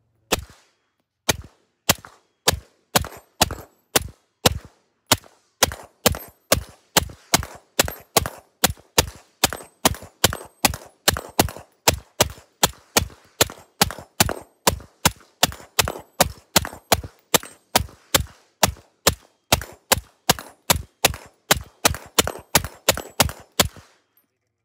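Suppressed 5.56 AR-style rifles firing a long string of single shots, about two a second, with a Rex Silentium suppressor and an AAC SDN-6 in side-by-side use.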